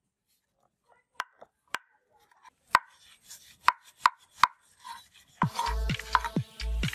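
About six sharp knife strikes on a wooden plank as Pangasius fish are cut, spaced unevenly over a few seconds. Background music with a heavy repeating beat comes in about five and a half seconds in.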